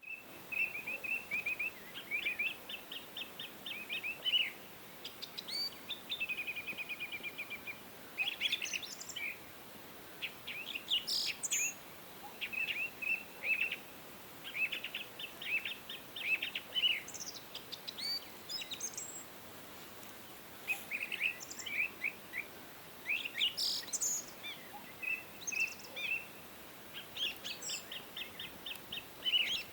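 Small birds chirping: bursts of quick, high chirps and short rapid trills, with a faint steady hiss of outdoor background underneath.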